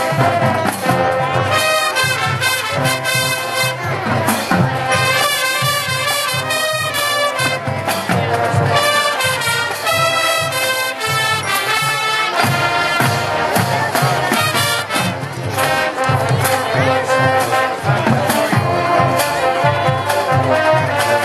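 Marching band playing a field show: full brass melody over a steady low drum beat.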